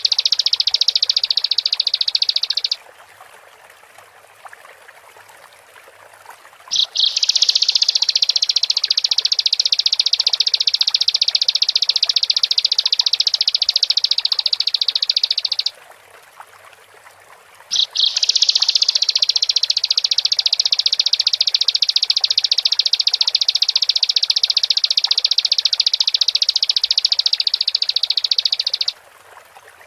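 Bar-winged prinia (ciblek) singing long, rapid, high-pitched trills in three bouts, the longer ones running about nine to eleven seconds, with pauses of a few seconds between them. This is the song used to rouse caged ciblek into singing.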